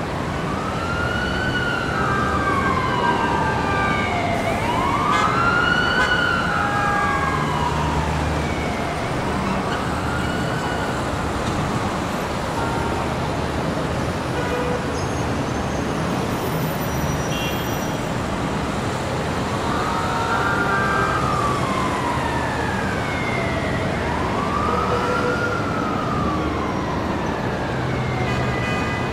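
Emergency vehicle siren wailing, its pitch slowly rising and falling about every four to five seconds, over steady city traffic noise. The wail drops out for several seconds around the middle, then returns near the end.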